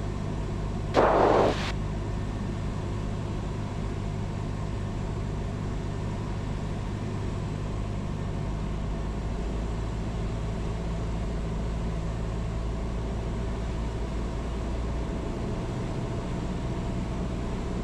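Cessna 172's single piston engine and propeller droning steadily as heard inside the cockpit, its note shifting slightly near the end. A brief voice-like burst, the loudest moment, comes about a second in.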